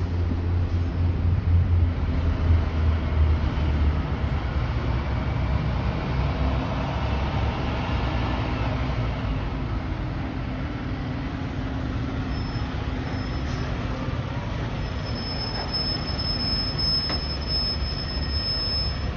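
Diesel engine of a tractor-drawn aerial ladder fire truck running loud and deep as the truck pulls out and drives off. A high, steady squeal comes in about fifteen seconds in and holds for a few seconds.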